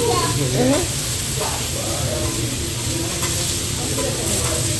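Food sizzling steadily on a teppanyaki griddle, with voices in the background.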